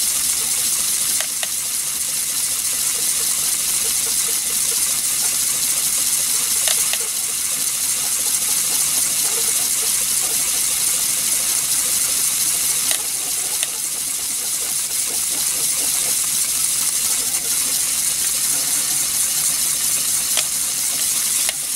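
Steam hissing steadily from the jets of a brass Hero's engine (aeolipile) as its sphere spins at about 4,200 rpm, with a few faint clicks.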